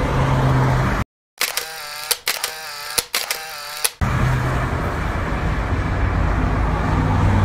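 Steady road noise and a low engine hum inside a moving car, cut off about a second in. A camera-shutter sound effect follows for about two and a half seconds, with several sharp clicks and a wavering whir, before the road noise resumes.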